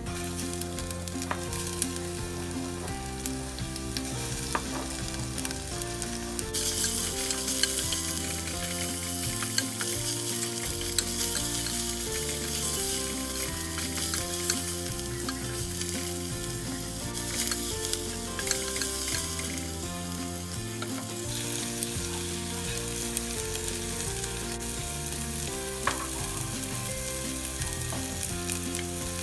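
Garlic, shallots and ginger sizzling as they fry in oil in a clay pot while being stirred. The sizzle grows louder about a quarter of the way in and eases back about three quarters through.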